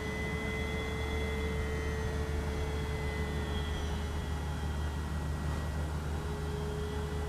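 Electric brushless motor and propeller of an FMS Cessna 182 RC model airplane in flight: a steady whine with a fainter higher tone, both drifting slightly in pitch, over a low rumble.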